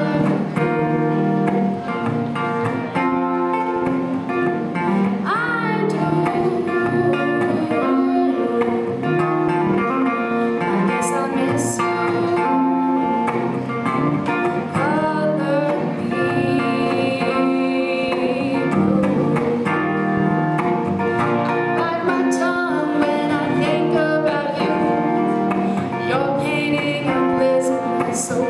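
A song with guitar and singing.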